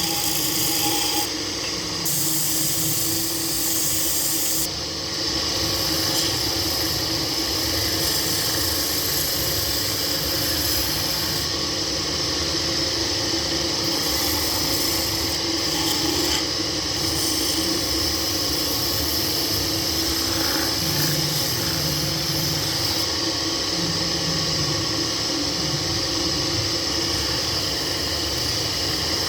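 Lathe running steadily with a steady hum, while a turning tool rubs and scrapes against the spinning workpiece.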